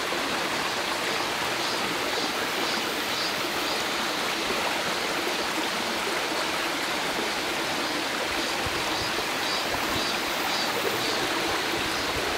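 Small forest stream babbling over rocks: a steady, even rush of trickling water.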